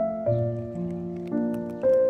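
Slow, soft piano music: notes and chords struck three times, each left to ring on.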